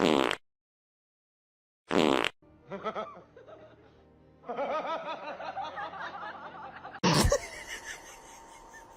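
Laughter and music in short, separate bursts: two loud bursts about two seconds apart, then a stretch of wavering laughter-like sound, and another loud burst near the end.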